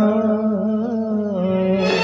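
A male singer holds a long, gently wavering note at the end of a line of a Rajasthani jogiya bhajan. A fuller, steady instrumental accompaniment comes in near the end.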